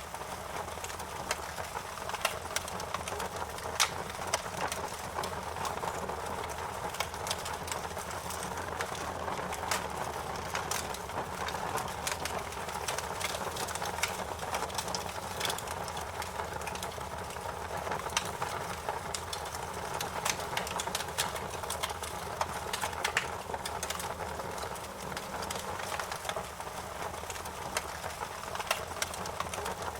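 Wood fire in a fireplace crackling: frequent irregular sharp snaps and pops over a steady hiss of burning.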